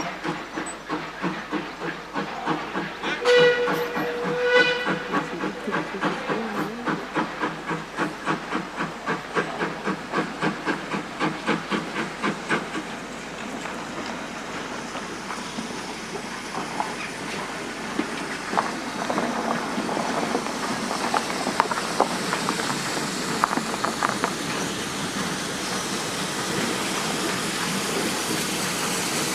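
Steam locomotive working, its exhaust beating at roughly two beats a second, with a brief whistle about three seconds in. The beats fade out about thirteen seconds in, giving way to a steady hiss of steam that grows louder as the engine comes closer.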